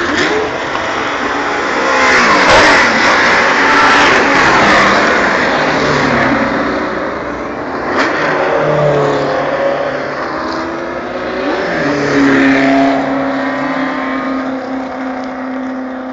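Racing car engines revving and passing, their note rising and falling repeatedly; in the last few seconds one engine holds a steady note as the sound slowly fades.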